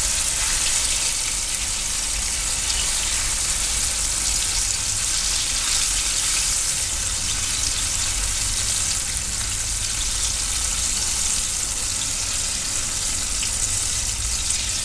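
Tempura-battered fruit deep-frying in a pot of hot oil: a steady sizzle.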